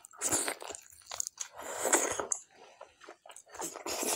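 A person biting into and chewing a piece of mutton from a spicy mutton fat curry, eaten by hand. The mouth noises come in three bursts, the loudest about two seconds in.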